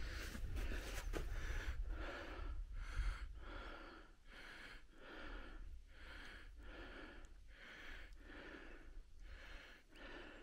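A climber's heavy, rhythmic breathing, a breath about every three-quarters of a second, with wind rumbling on the microphone for the first few seconds.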